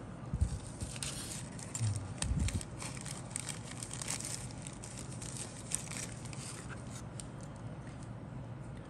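Thin clear plastic kit bag crinkling and rustling as it is handled, with light clicks of plastic model parts. There are soft thumps about half a second in and again around two seconds in.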